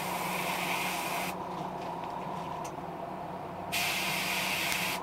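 Airbrush spraying black paint: a steady hiss of air and paint that stops about a second in and starts again near the end, set low for a light dusting of black.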